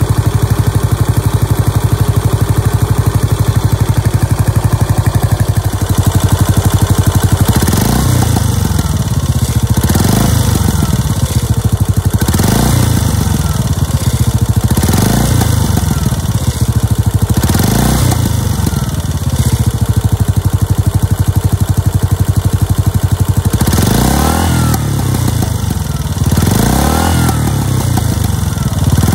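Yamaha SR400's air-cooled single-cylinder four-stroke engine running through a megaphone slip-on silencer. It idles steadily for several seconds, then is blipped repeatedly, the revs rising and falling about every two to three seconds.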